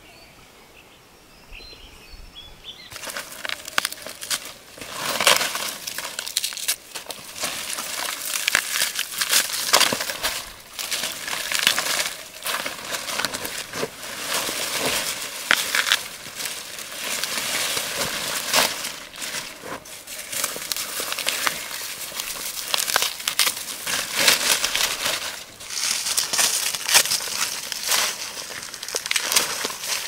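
Dry, dead taro leaves and stalks rustling and crackling as they are pulled and gathered by hand, starting about three seconds in and going on irregularly.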